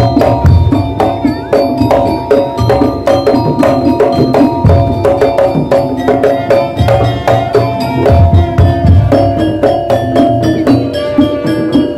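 Madurese daul percussion ensemble playing: drums and tuned metal percussion struck together in a fast, dense rhythm, the pitched notes ringing on over the beat.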